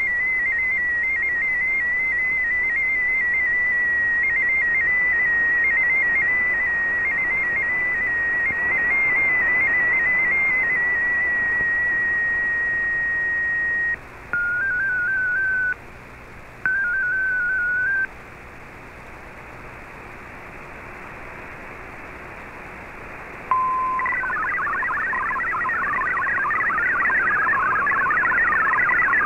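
MFSK digital data tones received over shortwave radio: first the MFSK16 signal, a single warbling tone hopping around one pitch, which settles into a held tone and stops a little before halfway. Two short bursts of tones at a lower pitch follow, then a few seconds of shortwave hiss and a brief steady tone, and near the end the faster, busier warble of MFSK64 data begins.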